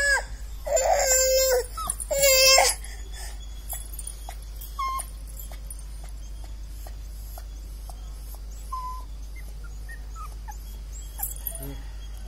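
A dog whining: three drawn-out, high-pitched whines in the first three seconds, then only a few faint, short whimpers.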